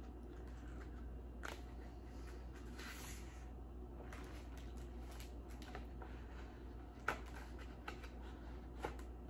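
Pages of a large hardcover picture book being handled and turned: a few soft paper rustles and light taps, the sharpest about seven seconds in, over a steady low room hum.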